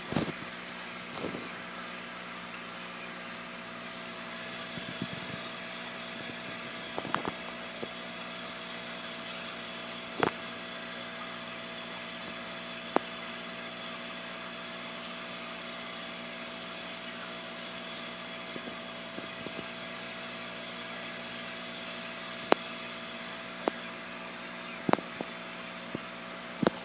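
Aquarium pump running with a steady hum and hiss, broken by a few scattered sharp clicks.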